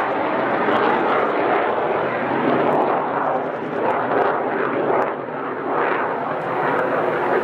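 Twin F119 turbofans of an F-22A Raptor in flight: a loud, steady, rough jet roar that dips slightly about five seconds in.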